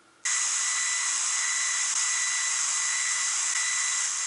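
FM radio static from an LG GS155a cell phone's loudspeaker, the radio set to 87.5 MHz: a loud steady hiss that switches on abruptly a quarter second in, with a thin high tone running through it.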